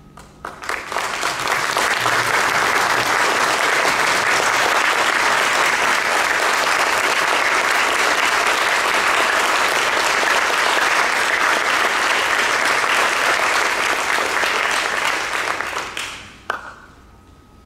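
Audience applauding: the clapping starts about half a second in, builds quickly, holds steady, and dies away near the end, with a single sharp click as it fades.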